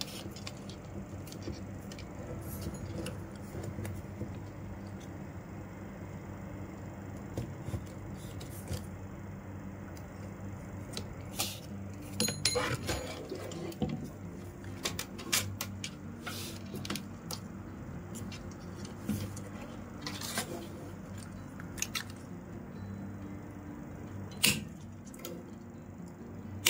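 Plastic rattan strands and small weaving tools being handled, giving scattered light clicks and clinks over a steady low hum. There is a busier run of clicks about halfway through and one sharper click near the end.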